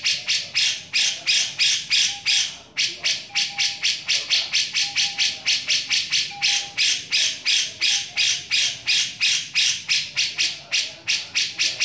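Grey-cheeked bulbul (cucak jenggot) giving a fast, harsh, rasping chatter, about four notes a second, with a brief break about three seconds in.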